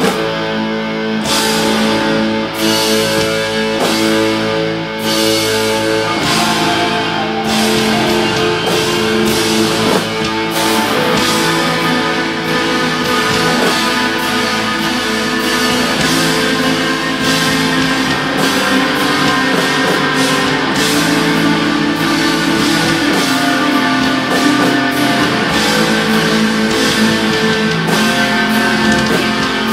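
Live black metal band playing: distorted electric guitars hold long chords over a drum kit keeping up a dense beat.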